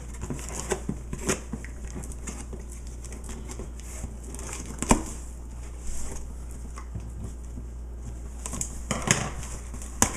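Packaging rustling and crinkling with scattered clicks and knocks as a cardboard shipping box is opened and its contents handled; one sharper knock about halfway through and a busier patch of handling near the end.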